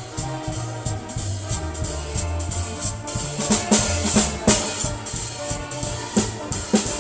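Live jazz band playing: a drum kit with cymbal and drum hits over an upright double bass plucking steady low notes.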